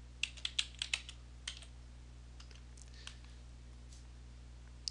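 Computer keyboard typing: a quick run of about ten keystrokes in the first second and a half, then a few faint, scattered taps.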